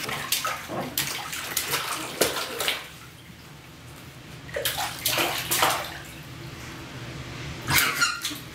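Bathwater splashing and sloshing in an infant bath seat as the baby moves and pats the water, in short bursts with a quieter stretch of about two seconds in the middle.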